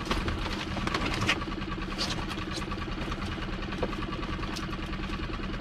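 A boat engine idling steadily, with a few sharp clicks and knocks as a lobster pot is handled.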